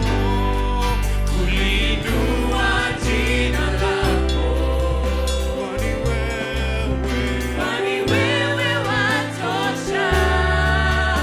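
Gospel worship music: a choir singing over a band with sustained bass and keyboard chords.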